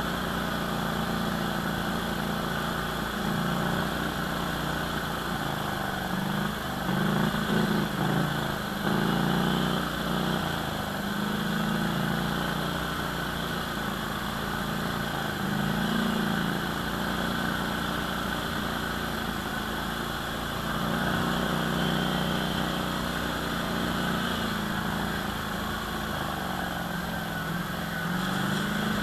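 ATV engine running under a rider's throttle, its pitch rising and falling again and again as it speeds up and eases off.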